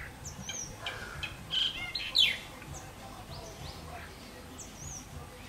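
Small birds chirping: a string of short rising and falling chirps, with the loudest, a quick falling trill, about two seconds in.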